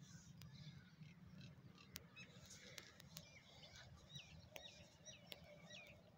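Faint outdoor birdsong: scattered chirps, then a run of five or six short repeated hooked whistle notes in the second half, over a low steady rumble and a few faint ticks.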